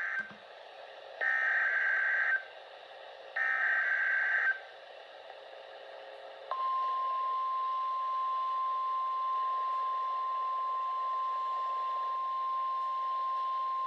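Emergency Alert System header for a severe thunderstorm warning: the end of one burst of buzzy data tones and two more, each about a second long (the SAME code). Then a short stretch of radio hiss, and about six and a half seconds in, the long steady single-pitch warning alarm tone of weather radio.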